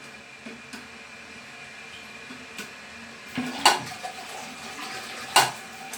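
Hard clacks and knocks of the toilet cistern's flush mechanism being worked by hand, two sharp loud ones about three and a half and five and a half seconds in, over a faint steady background. The flush lever is fastened too tight and will not spring back.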